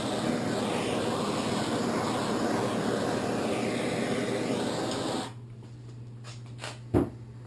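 Handheld gas torch flame hissing steadily while it heats the plastic seat shell, then shut off suddenly about five seconds in. A single sharp knock follows near the end.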